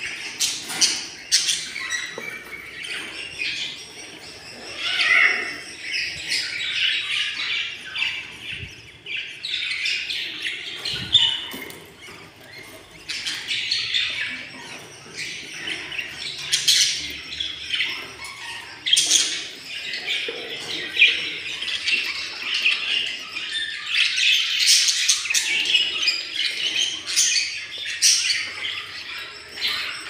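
Budgerigar chicks about 17 days old chirping and squawking in their nest box: a dense, raspy chatter of overlapping calls with short, sharp chirps, easing briefly about two-fifths of the way in.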